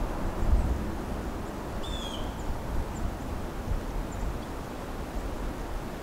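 Low wind rumble on the microphone, strongest in the first second. About two seconds in comes a single short, slightly falling bird call, followed by a few faint high chips.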